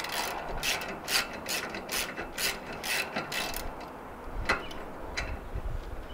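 Hand socket ratchet clicking as it is worked on the lug nuts of a spare tyre to loosen them. The clicks come in a steady rhythm of about two a second, then thin out to a few single clicks near the end.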